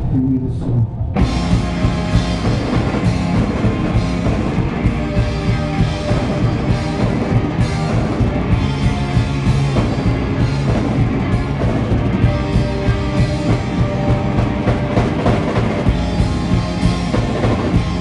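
Live rock band playing loud with electric guitar and drum kit. After a brief thinner moment at the start, the full band comes back in about a second in and drives on with a steady, hard-hit beat.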